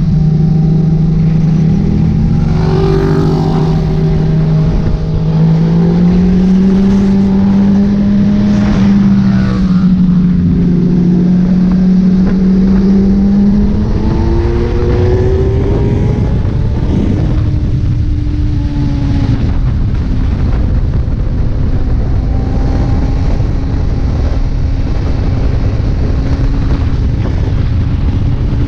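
Kawasaki Z1000 inline-four engine pulling at road speed under heavy wind rush. Its note climbs slowly over the first half, changes partway through, then holds steady.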